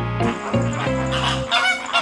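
Flamingo calling: a rapid run of short, goose-like honks starting about a second in, over background music.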